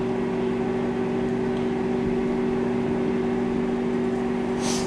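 Microwave oven running: a steady electrical hum with a low droning tone and no change in level.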